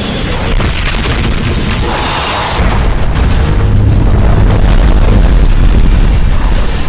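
Sound-designed explosion booms with music underneath: a few sharp hits at first, then from about two and a half seconds in a heavy, deep boom that stays loud.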